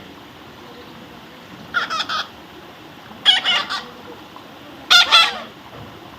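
Pet parrot calling: three short harsh squawks, about a second and a half apart.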